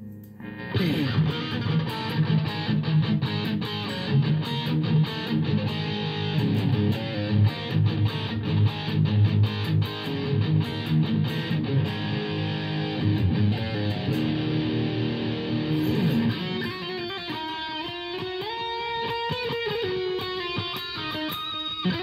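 Late-1980s Kramer LK-1BF electric guitar played through reverb: a fast, densely picked low-register riff starts about a second in. About two-thirds of the way through it gives way to a slower single-note lead line with bends and slides.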